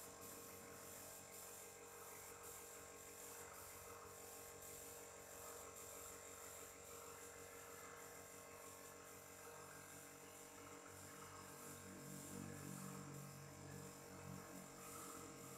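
Small electric air compressor running with a steady, faint hum, feeding a paint spray gun, with a light hiss of air above it. A deeper hum swells about ten seconds in.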